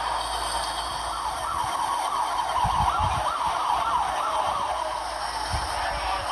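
Emergency vehicle siren in a fast yelp, rising and falling several times a second, loudest through the middle, heard over a fire radio channel with a steady hiss of static.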